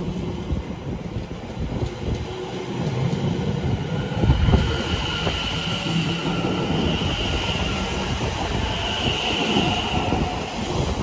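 Class 720 Aventra electric multiple unit moving past along the platform, with rumbling wheel and rail noise. A steady high traction-motor whine comes in about halfway through, and there is a single knock just before it.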